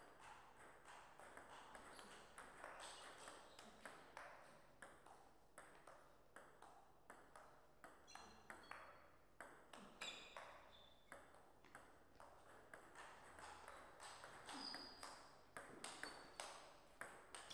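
Table tennis ball clicking back and forth off the rackets and the table in a rally, a steady run of sharp ticks, a few each second.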